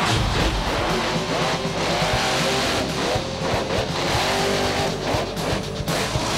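Rock music with electric guitar, mixed with a monster truck engine revving hard in rising and falling glides.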